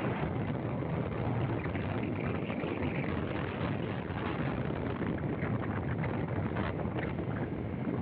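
Steady rushing wind and road noise of a vehicle on the move.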